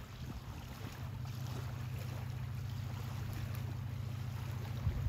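Steady low drone of a boat engine across the water, with wind on the microphone.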